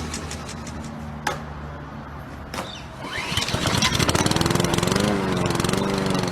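Small lawnmower engine starting: a quick pull and rapid firing pulses about halfway through that speed up and catch, then the engine runs steadily with a slightly wavering pitch.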